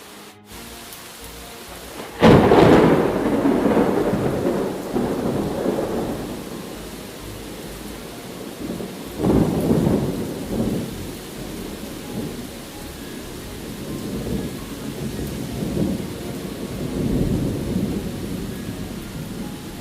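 Steady rain with thunder: a loud clap about two seconds in that rumbles away over several seconds, a second peal a little before the halfway point, and softer rolls of thunder later on.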